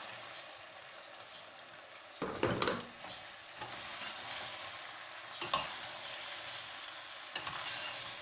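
Fresh peas, pods and all, sizzling as they go into a hot pot of tomato paste frying in oil, with a louder rattle of peas tumbling in about two seconds in. A metal spoon then stirs them, knocking sharply against the steel pot a couple of times.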